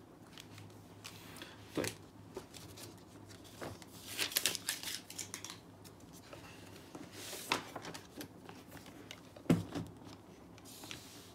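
Paper pages of a spiral-bound booklet being turned and the booklet handled: rustling with light taps, and one sharper knock near the end.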